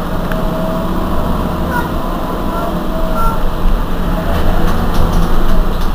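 Heuliez GX 127 city bus's diesel engine idling steadily while the bus stands at a stop.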